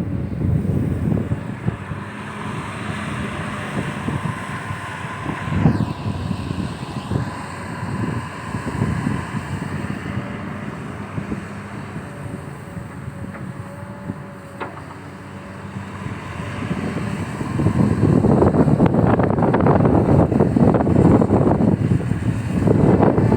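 XCMG XE215C excavator's diesel engine running, getting louder about three-quarters of the way through.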